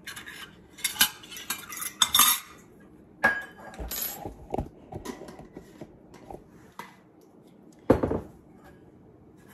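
A measuring spoon clinking and scraping against a glass jar of yeast and a stainless steel mixing bowl: a run of light clinks in the first half, then one louder knock about eight seconds in.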